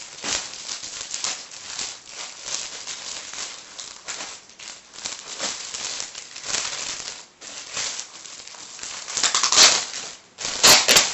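Plastic packaging crinkling and crackling as a taped-up parcel is pulled open by hand, with a few louder crackles near the end.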